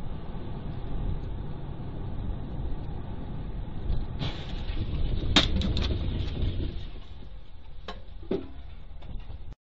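Car driving, heard from inside: a steady low rumble of engine and road noise, with a few sharp knocks or clicks about four, five and a half, and eight seconds in. It cuts off suddenly just before the end.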